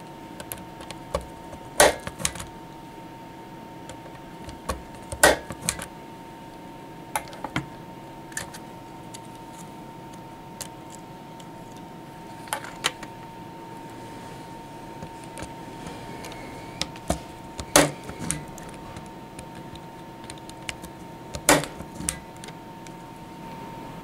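Spring-loaded impact punch-down tool with a 110 blade on its high setting, snapping as it seats and trims Cat5e conductors into the 110 slots of a network patch panel: five loud snaps a few seconds apart, with lighter clicks from positioning the tool and wires between them.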